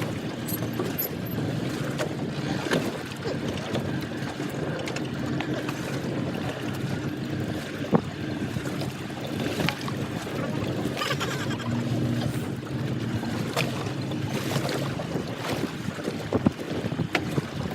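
A fishing boat's engine runs with a steady low hum, and wind buffets the microphone. A single sharp knock comes about eight seconds in.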